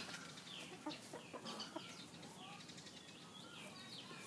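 Brown laying hens making faint, soft high calls, many short falling notes in a row, with a few light scratches in dry dirt as they settle into a dust-bathing hollow.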